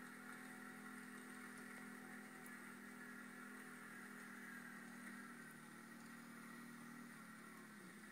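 Faint, steady engine drone from an ATV and a snowmobile riding through snow. Near the end the pitch drops a little as the engines ease off.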